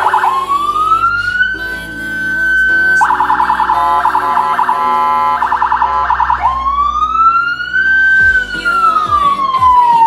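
Electronic vehicle siren sounding in several patterns. A wail rises and holds, then about three seconds of rapid warble, then another wail rises and slowly falls.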